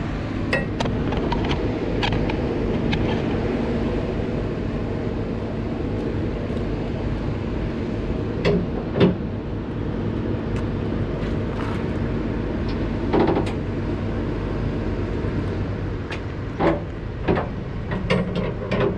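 A truck engine idles steadily in the background, with scattered sharp metallic clanks and clicks as a winch bar works the trailer's strap winches to loosen the load straps. The clanks come singly for most of the time and bunch together near the end.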